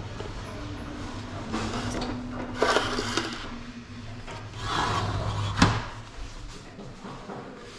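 Handling noises at a kitchen window: a few scraping, sliding sweeps of a sliding window frame and things being touched, then a sharp click about five and a half seconds in.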